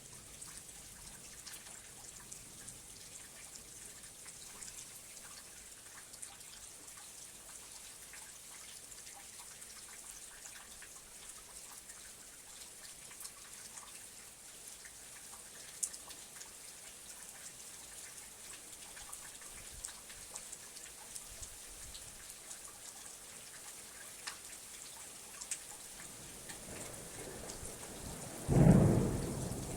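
Steady rain falling, an even hiss with a few louder drops. Near the end a thunderclap builds from a low rumble to a loud crack and then rolls away.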